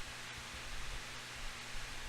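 Room tone: a steady hiss with a low electrical hum and some faint low rumble, and one faint tick about a third of a second in.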